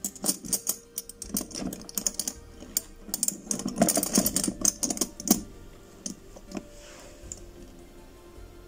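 A rapid, irregular run of sharp clicks and rattles, densest about four seconds in, that stops about five and a half seconds in; a few scattered clicks follow.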